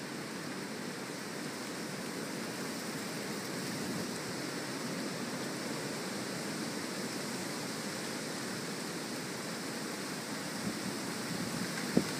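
Hurricane wind and rain making a steady rushing noise. A single sharp knock sounds near the end.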